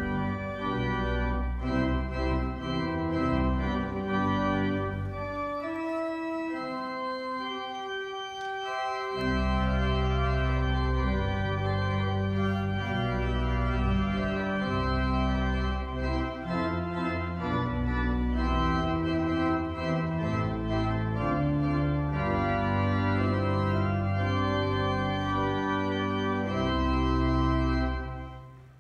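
Pipe organ playing sustained chords over a deep pedal bass. The bass drops out for about three seconds some six seconds in, leaving only the upper voices, then comes back in, and the music dies away just before the end.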